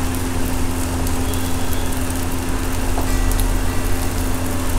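Steady low mechanical hum of a running motor, with one constant tone.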